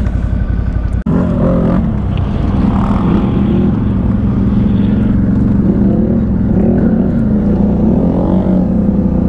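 CFMoto ATV engines running. For about a second a quad's engine runs close by with a quick pulsing beat; after a sudden cut comes a steady engine drone whose pitch rises and falls as the throttle is worked.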